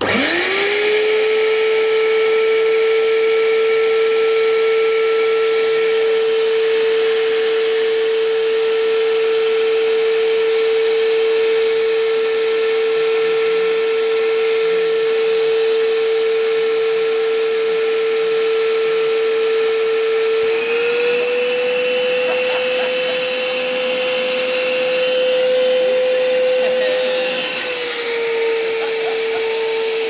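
Vacuum cleaner switched on, its motor spinning up within a second to a loud, steady high whine. The pitch rises a little about twenty seconds in and drops back near the end.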